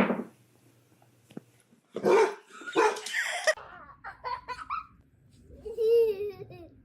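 A pet dog barking and yipping in several short bursts, then giving one longer, wavering call near the end.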